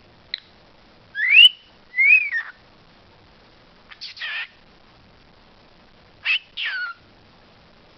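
A pet talking bird whistling and calling. A loud rising whistle comes about a second in, then one that rises and falls. A shorter call follows about four seconds in, and two more calls near the end, the last sliding down in pitch.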